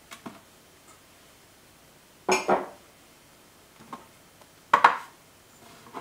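Glass jars being moved about and set down on a shelf, knocking and clinking against one another, with two louder double knocks about two and a half and five seconds in.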